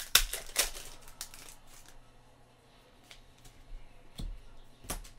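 Trading cards being handled and placed on a pile on a table: a quick run of crisp card snaps and slides in the first second or so, then softer card rustles, with a couple more snaps near the end.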